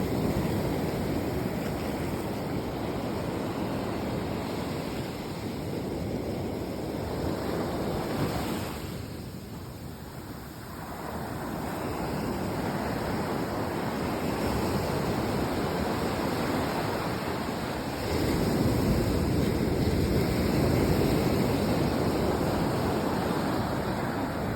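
Ocean waves washing in, a steady surf that eases off about ten seconds in and builds again in the second half.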